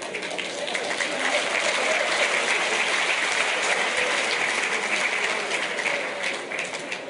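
Audience applauding, the clapping swelling over the first second, holding, then dying down near the end.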